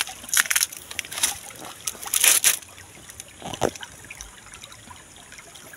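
Shallow stream water trickling, with irregular splashes and sloshes over the first two seconds or so, then a quieter steady trickle.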